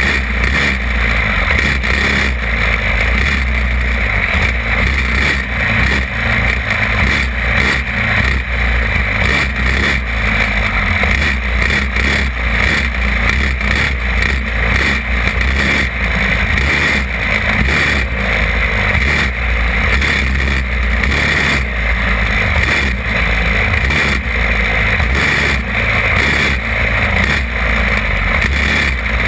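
Champ kart's small engine running loud at racing speed, heard from on board the kart.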